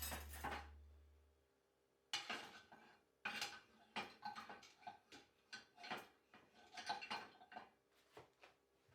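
Cutlery and dishes clinking: a quick string of faint clinks and taps with short ringing, starting about two seconds in.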